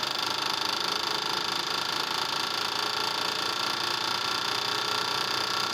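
Fuel injector test bench running, rapidly pulsing the Alfa Romeo 2.0 JTS injectors with a steady, fast mechanical clicking, while the injectors are checked for uneven spray behind a cylinder misfire.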